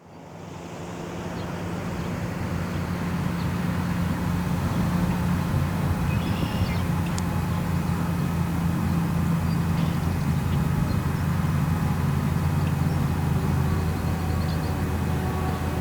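Distant ACA Banshee outdoor warning siren sounding about half a mile off, a steady low droning tone that fades in over the first few seconds and then holds.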